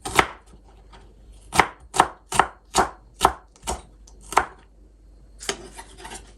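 Knife slicing an onion on a chopping board: one cut at the start, then a run of about eight sharp chops a little under half a second apart. Near the end a softer rustling scrape follows.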